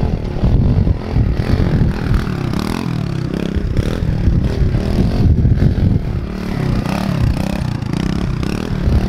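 Kawasaki KLX110L pit bike's small four-stroke single-cylinder engine revving up and down as it is ridden and pulled into a wheelie, its pitch rising and falling with the throttle.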